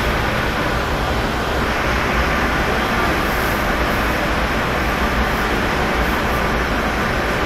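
Steady, loud rushing background noise with a strong low rumble, even throughout, with no distinct knocks or thuds.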